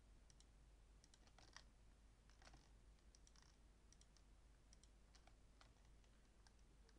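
Faint clicks of a computer mouse, a scattered series of light clicks, some in quick pairs, over near-silent room tone.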